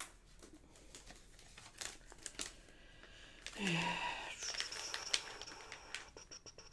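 Paper and cardstock pieces rustling and crinkling with small clicks as they are sorted through in a search for a die-cut word. About halfway through there is a short hummed 'mm'.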